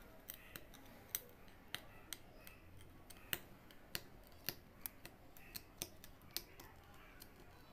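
Aari hook needle punching in and out of fabric stretched taut on an embroidery frame, making faint sharp clicks at irregular spacing, about two a second, as a chain-stitch outline is worked.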